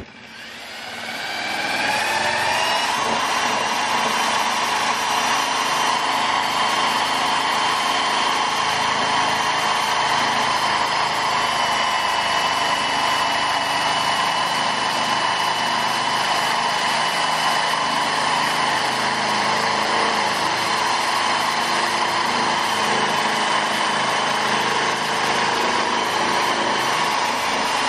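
A hand-held power drill spinning a DC motor used as a generator. It winds up with a rising whine over the first two seconds or so, then runs steadily while the generator drives heating pads at over 30 watts.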